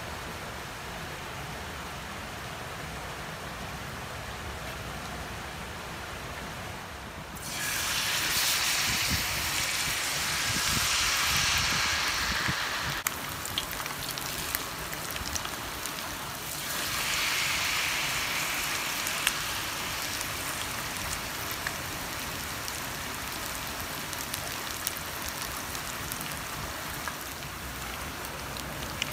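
Battered kisu (Japanese whiting) fillets frying in hot oil for tempura. After about seven seconds of steady background noise, a loud sizzle starts suddenly as the first fillet goes into the oil. It swells again around seventeen seconds as a second piece goes in, then settles into a steady sizzle with crackles.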